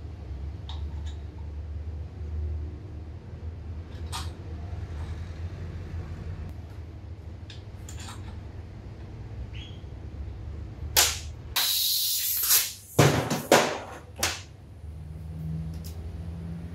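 Light clinks of hand tools over a steady low hum, then compressed air from an air blow gun: one hiss of about a second, followed by several short blasts.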